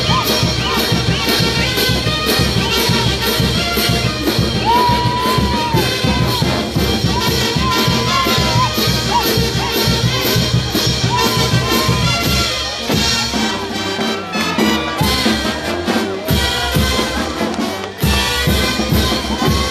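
Brass band with trumpets, trombones and sousaphones playing lively dance music to a steady beat, with crowd noise underneath. The low bass thins out about two-thirds of the way through, and the sound breaks off abruptly near the end.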